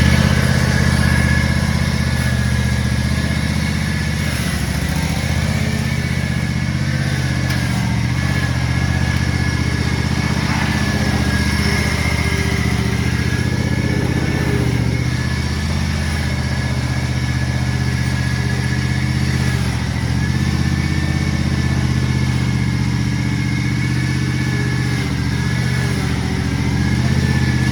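Zero-turn riding mower's four-stroke engine running steadily, its pitch dipping briefly a few times.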